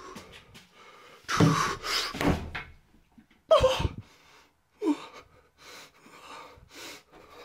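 A toilet stall door pushed open in a small tiled room, with several loud knocks and bangs: two about a second and a half to two and a half seconds in, and another about three and a half seconds in. Short falling creaks come with the later bangs.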